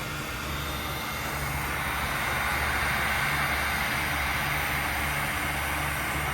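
Steady machine hum with a hiss that grows louder about two seconds in.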